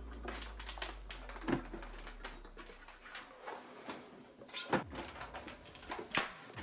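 Clicks and knocks of tools and hard plastic casing parts being handled while an iMac G3 is taken apart, with louder knocks about a second and a half in and twice near the end.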